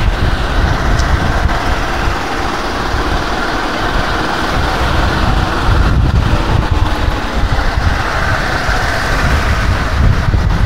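Wind buffeting the microphone of a moving electric bike, a heavy fluctuating rumble, over steady road and traffic noise.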